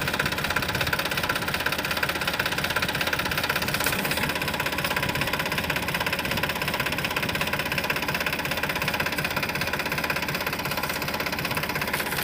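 Sonalika DI 35 RX tractor's three-cylinder diesel engine running at a steady speed, its firing an even rapid rhythm that does not change.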